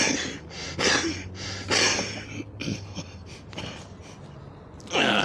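A series of short rasping swishes, strongest at the start, about one and two seconds in, and near the end, as a mark's anchor line is hauled hand over hand aboard a small boat.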